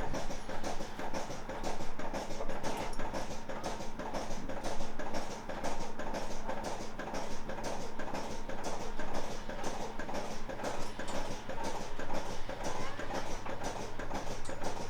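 Background music with a fast, busy rhythm.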